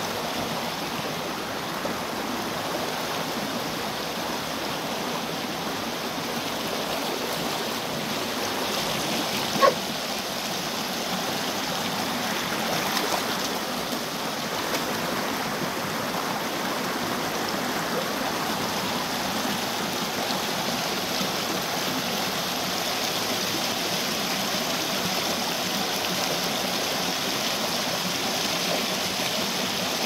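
Shallow rocky river rushing steadily over small cascades and stones. About ten seconds in, a single short, sharp sound rises briefly above the water.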